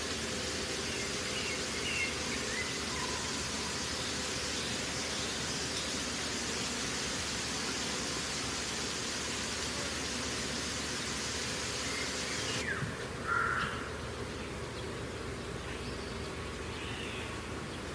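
Steady rushing of water spilling over a low river weir, with a brief high chirp about thirteen seconds in.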